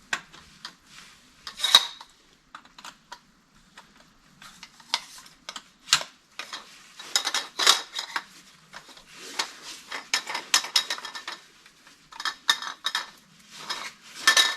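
Hard plastic parts of a mini chainsaw's pole extension and handle being handled and fitted together: irregular clicks, clacks and scraping rattles.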